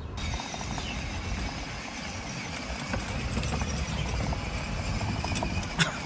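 Electric ride-on toy jeep rolling over paving tiles, its hard plastic wheels rumbling and rattling over the joints, with a faint steady high whine and a sharp knock near the end.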